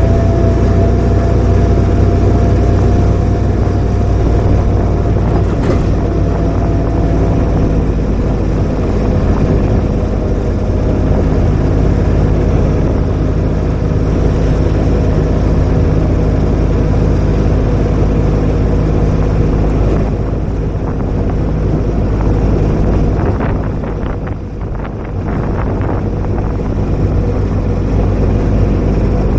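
Utility vehicle's engine running steadily while it drives along a dirt track. Near the end the engine note eases off briefly, with some rattling.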